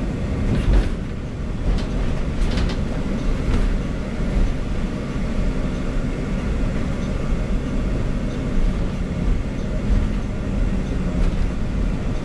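Transit bus driving, heard from inside the passenger cabin: a steady low engine and road rumble, with a few light rattles about one to three seconds in.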